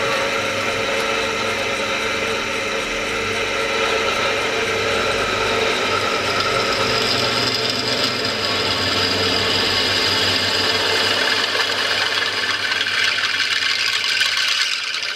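Pillar drill running and boring a hole through square metal tubing: a steady motor hum with the noise of the bit cutting metal, starting abruptly and stopping at the end.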